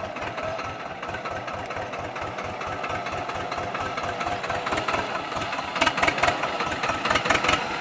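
Swaraj 724 XM tractor's two-cylinder diesel engine running with an even low thudding beat, about five a second. A run of loud sharp knocks comes about six seconds in, the loudest sounds here.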